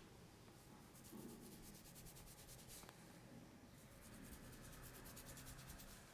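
Faint rubbing of hands over skin and hair during a massage, in quick repeated strokes that come in two stretches.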